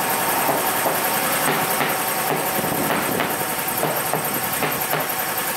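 Steady running noise with hiss from the compressed-air supply feeding a truck tyre that won't take air, with a few light knocks as the tyre is worked with a steel bar.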